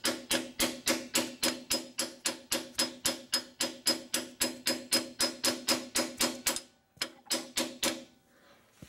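Hammer tapping on a socket extension to drive a 1¼-inch freeze plug into a Cummins 4BT engine block: quick, even metal strikes with a short ringing tone, about four a second. They stop briefly and then a few more taps follow near the end.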